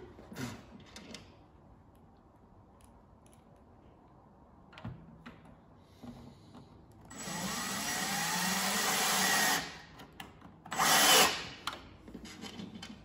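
Cordless drill-driver driving a screw into the drawer's bottom panel: one run of about two and a half seconds that rises slightly in pitch, then a shorter, louder burst about a second later to snug the screw down.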